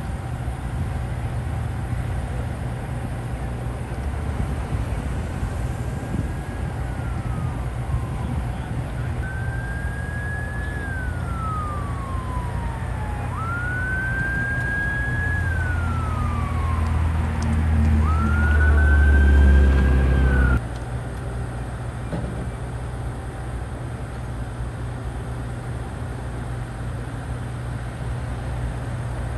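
An emergency vehicle siren wails in four slow rise-and-fall sweeps, each louder than the last, over a steady low engine rumble. A heavier engine rumble swells under the last two sweeps, and the siren and that rumble cut off suddenly.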